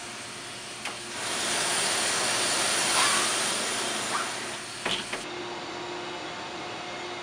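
A click, then a loud rushing hiss that swells for about three seconds and dies away, followed by a few sharp clicks.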